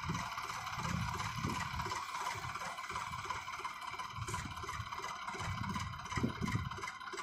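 Sonalika tractor's diesel engine idling steadily.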